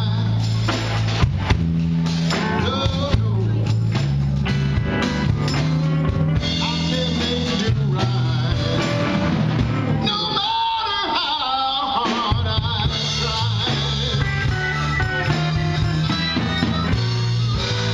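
Live blues-rock band playing: electric guitars, bass, drum kit and keyboards, with a sung vocal. The bass and drums drop out for about two seconds near the middle, then come back in.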